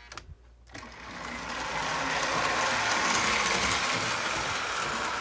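Pre-war Lionel 1688E Torpedo toy locomotive running on its track: the whir of its electric motor and gears, with the wheels rolling on the rails. It starts up about a second in, grows louder over the next second, then runs steadily.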